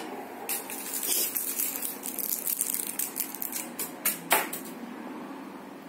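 Candy wrapper crinkling in a run of quick crackles, with a sharper crackle about four seconds in.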